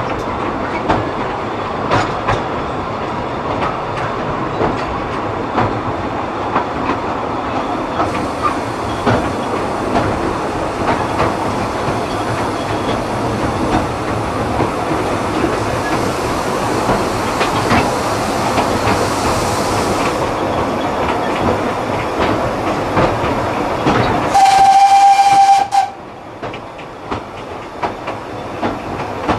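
Narrow-gauge passenger carriage running behind a steam locomotive: a steady rumble with rail-joint clickety-clack. About 24 seconds in, Corris Railway No 10's steam whistle gives one loud blast of about a second and a half. After it the running is quieter, with clicks.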